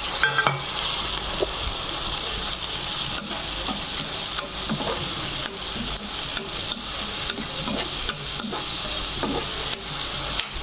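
Chopped tomatoes and onions sizzling in hot oil in a frying pan, with a spatula stirring and scraping them around the pan in scattered clicks and knocks.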